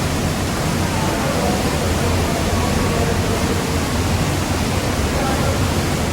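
Steady, loud rush of the Varone waterfall's falling water.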